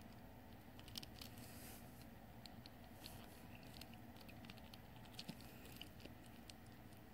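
Near silence, with faint light clicks and rubbing from small plastic doll parts handled in the fingers as the doll's body is pressed onto its legs. A couple of the clicks, about a second in and just after five seconds, are a little louder.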